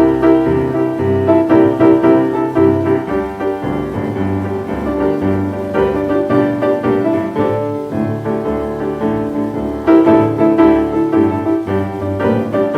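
Blues piano playing a boogie-woogie instrumental passage on a 1941 78 rpm record, a steady rhythmic run of notes with a louder accent about ten seconds in.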